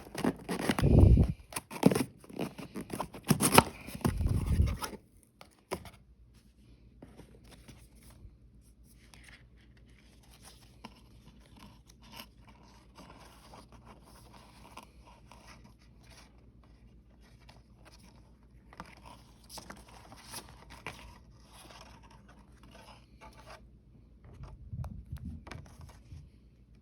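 Packaging being opened and handled: loud scraping, tearing and crinkling for the first five seconds, then quieter rustling and small clicks, with a short louder rustle near the end.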